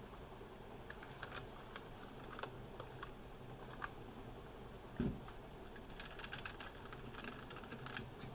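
Typing on a Royal Kludge RK71 mechanical keyboard with brown switches: irregular keystroke clicks, with a denser run of keys near the end. One heavier thump about five seconds in.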